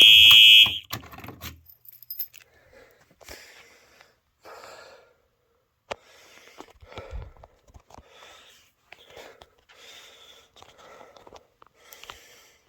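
Simplex 4903 fire alarm horn sounding a loud, steady high tone that cuts off abruptly under a second in. It is followed by a person's faint breathing, about one breath a second, with a few small clicks.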